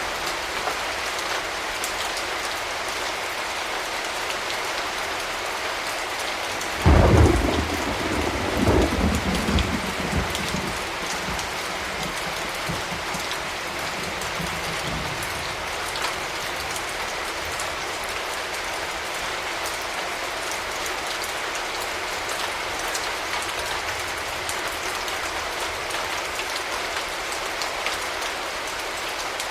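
Steady rain falling, with one clap of thunder about seven seconds in: a sudden loud crack that rolls on in a low rumble for several seconds before dying away under the rain.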